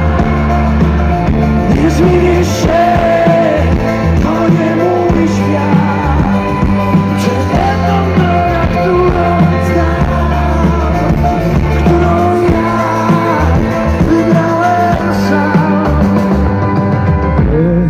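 Live rock band playing through a big outdoor PA, heard from within the crowd: drums, bass and guitars, with a melody line bending over steady bass notes.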